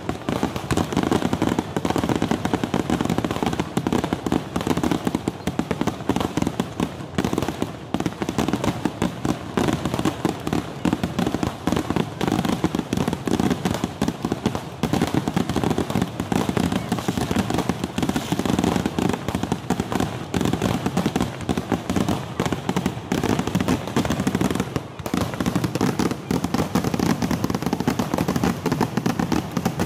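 Kerala temple-festival fireworks (vedikettu) going off in a dense, unbroken barrage of rapid bangs and crackles.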